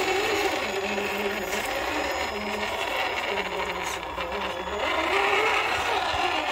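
Brushed 550 electric motor and geared drivetrain of a Traxxas TRX-4 RC crawler whining as it crawls over roots, the pitch shifting up and down with the throttle.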